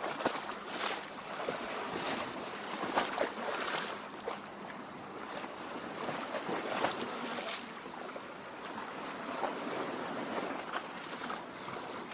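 Lake water lapping and gurgling at the shore: a steady wash of water broken by many small, irregular splashes.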